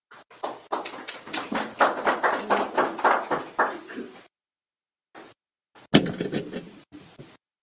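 Scattered hand-clapping from a small audience for about four seconds, dying away, then a single sharp knock about six seconds in.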